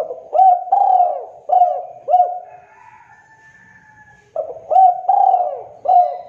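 Spotted dove cooing: two phrases of several short, arching coos, the second starting after a pause of about two seconds.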